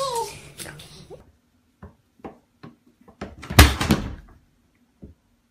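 A baby's babble ends just after the start; then a few light taps follow, and a louder knock about three and a half seconds in.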